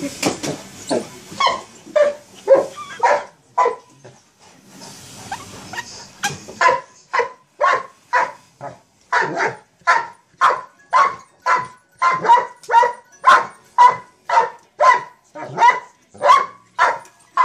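Mastiff barking in play: a few irregular barks at first, then from about six seconds in a steady, rhythmic run of loud barks, nearly two a second.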